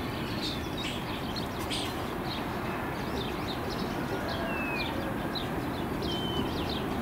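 Small birds chirping repeatedly in short high calls, one a longer downward whistle about halfway through, over a steady outdoor background hiss.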